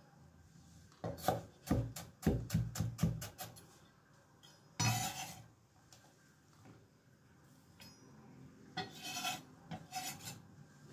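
A chef's knife chopping red onion on a wooden cutting board: a quick run of about ten blade strikes. Then the blade scrapes across the board to sweep up the chopped onion, once at length and again in a few short scrapes near the end.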